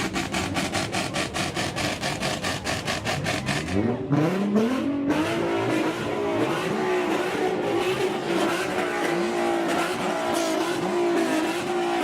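Car engine and exhaust under way. It pulses rapidly and evenly at first, then the revs climb quickly about four seconds in and hold at a steady, slightly wavering pitch.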